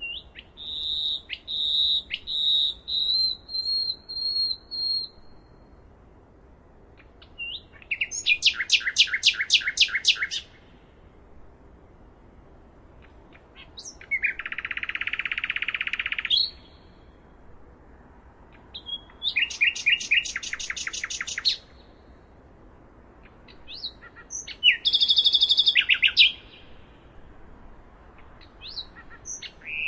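Songbirds singing in separate phrases a few seconds apart: a run of about eight short whistled notes at the start, then rapid trills of sweeping notes, a buzzy call, and more trills, with a faint steady hiss in the pauses.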